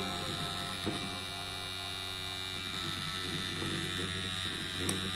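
Steady low electrical hum with a thin high whine above it, and two light clicks about four seconds apart.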